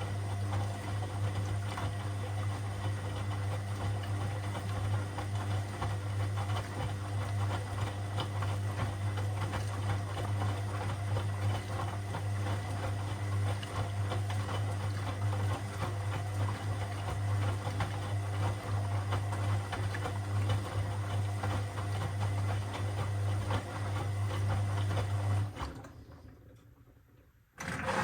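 Washing machine running, a steady low motor hum with a fine mechanical rattle. About 25 seconds in it stops and dies away, then starts again suddenly just before the end.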